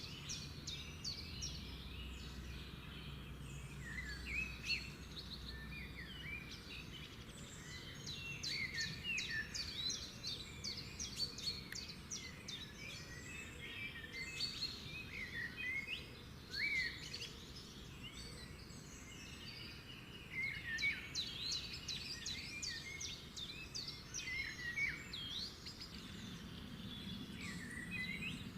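Many small birds chirping and twittering together, with quick rising and falling calls that come thick and fast throughout, over a faint low rumble.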